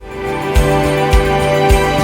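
Background music fading in, with sustained instrumental tones over a steady low beat.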